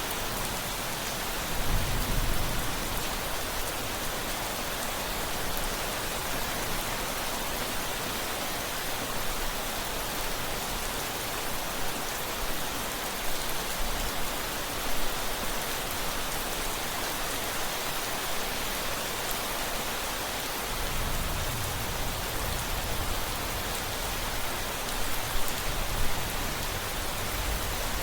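Steady rain hissing, with low rumbles of distant thunder: a short one about two seconds in and a longer one rolling through the last quarter.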